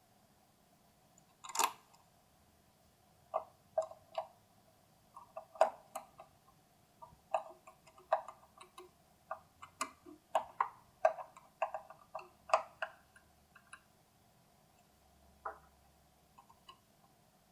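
Irregular small clicks and taps of hand tools and hardware as ground wires are fastened to a grounding bus: a sharp click about a second and a half in, then a dense, uneven run of clicks until about thirteen seconds in, and a few more near the end.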